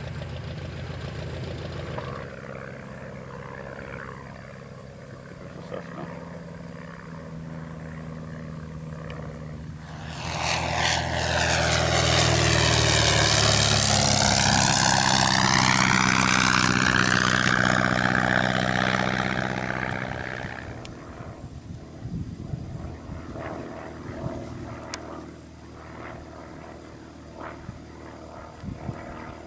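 Van's RV-6A light aircraft's piston engine and propeller during a low flyby. A distant drone swells about ten seconds in, stays loud for several seconds with a hollow rushing sound that sweeps down in pitch and back up as the plane passes, then fades about twenty seconds in.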